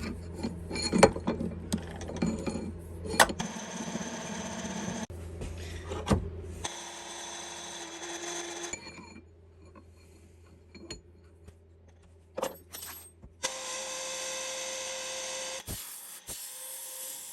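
Power tools running during metalwork, with metal clicking and scraping over a steady motor hum for the first seven seconds. After a quieter stretch with a few knocks, a machine runs again with a steady higher tone from about three-quarters of the way through until shortly before the end.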